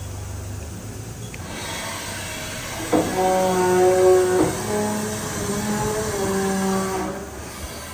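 Axis servo motors of a 1998 Haas VF-8 vertical machining center whining as the machine traverses under a short program, the pitch jumping in steps from one move to the next. A sharp click comes about three seconds in and another about a second and a half later.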